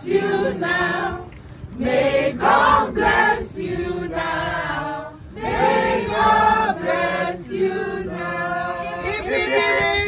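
A group of people singing a birthday song together.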